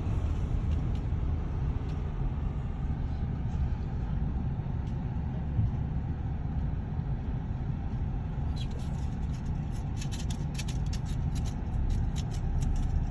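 Steady low rumble of a car heard from inside the cabin as it drives. A run of quick, light clicks comes in about eight and a half seconds in and carries on to near the end.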